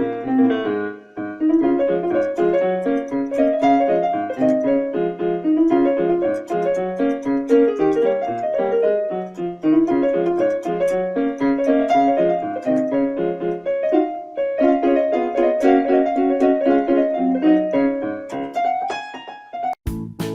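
Background music: a bright, quick piano melody of short notes, with a sudden cut about a second before the end to a different sound with clicks and bell-like dings.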